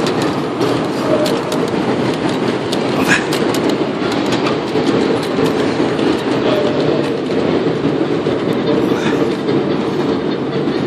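Ride-on miniature railway train rolling along its track, a steady rumble of the cars with scattered sharp clicks, heard from aboard the moving train.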